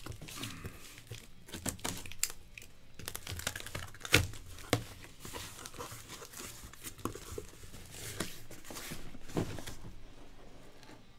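Cardboard shipping case being turned over and opened by hand: cardboard scraping and rubbing, tearing and flaps being pulled apart, with irregular sharp knocks, the loudest about four seconds in.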